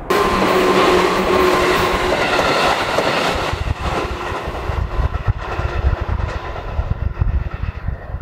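JR 211-series electric train passing close by: a loud rush of running noise from its motors and wheels, then a rumbling clatter of wheels over the rail joints from about halfway through.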